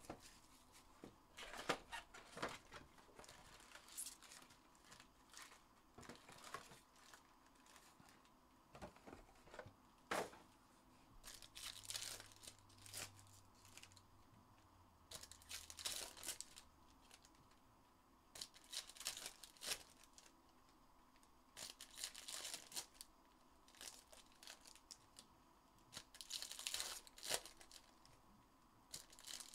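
Trading card pack wrappers being torn open and crinkled by hand, in faint short bursts every couple of seconds, with a few light clicks as cards are handled.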